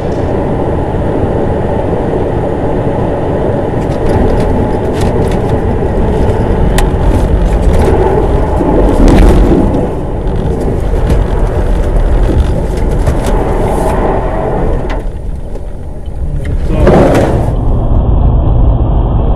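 Car driving, heard from inside the cabin through a dashcam: a steady low rumble of engine and tyres on the road, with scattered sharp clicks and knocks and a brief louder swell near the end.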